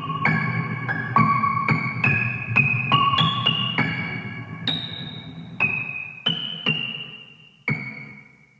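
A keyboard melody in an electric-piano tone. Single notes ring and decay, about two a second at first and then further apart, over a low steady bed as the whole fades down. One last note sounds near the end and rings out.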